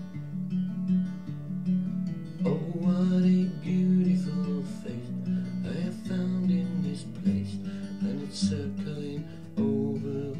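Steel-string acoustic guitar fingerpicked, chords broken into single notes in a repeating pattern over the 5th, 4th, 3rd, 4th and 2nd strings, with the high E string left unplayed. The bass note drops lower about seven seconds in as the chord changes.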